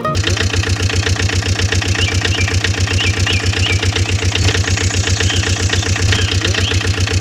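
Engine idling with a steady, even chugging pulse, about nine or ten beats a second.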